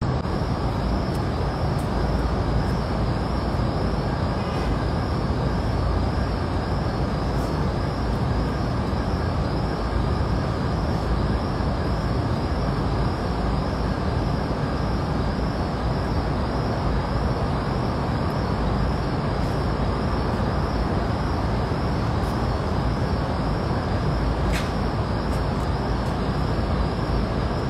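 Steady low rumble of outdoor city background noise with no voices, unchanging throughout, with a faint click or two.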